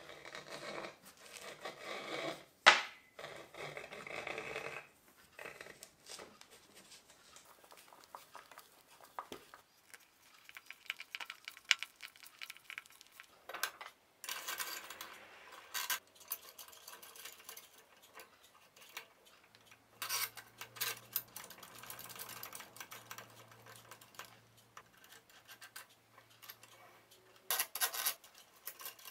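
Small metal parts clinking, tapping and scraping as copper tubing, brass fittings and threaded rods are handled and fitted together by hand, with a sharp knock about two and a half seconds in.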